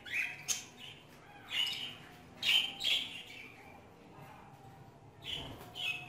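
Pet budgerigars chirping: short, separate calls come near the start, in the middle and near the end, with quieter gaps between.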